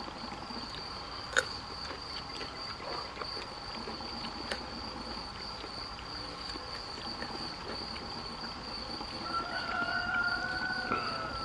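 A rooster crowing once near the end, a single drawn-out call of about two seconds, over a steady high-pitched chirring of crickets. A single sharp click comes about a second and a half in.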